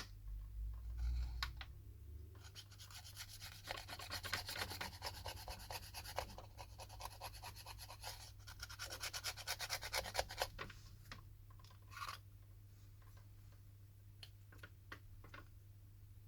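Rapid scraping and rubbing strokes as old adhesive is cleaned off a smartphone's frame, dense for most of the stretch, thinning near the end to a few scattered clicks and taps.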